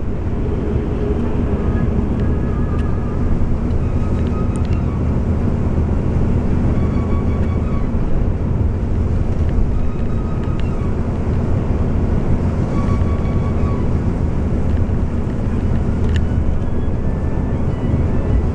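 Steady low drone of a Scania bus cruising at a locked 85 km/h, engine and road noise heard inside the cabin, with a few faint clicks scattered through it.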